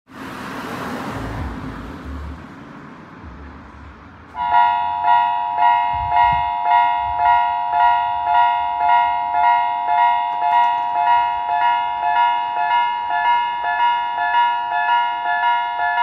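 Japanese railway level-crossing electronic warning bell switching on about four seconds in and dinging steadily about twice a second with a high-pitched, shrill tone, signalling an approaching train. Before it, a few seconds of rushing noise.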